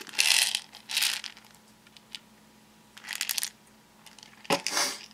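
Plastic packaging crinkling and rattling in four short bursts as packets of Pixos beads and kit parts are handled.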